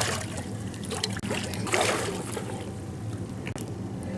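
Water splashing and trickling around a swimmer holding onto the side of an inflatable boat as he moves along it, with one louder splash about two seconds in.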